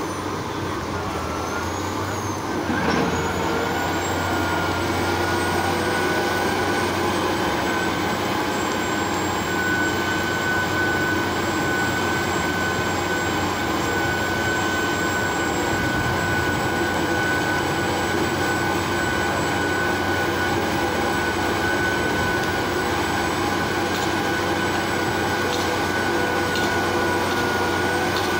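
Diesel engine of a tracked rotary piling rig running steadily, with a steady high whine over it that rises in pitch and settles about three seconds in.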